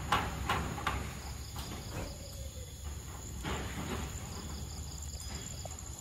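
A young macaque biting and chewing soft, juicy fruit: wet smacking clicks about two or three a second at first, becoming sparser after the first second. Behind it, a steady high insect drone with crickets chirping.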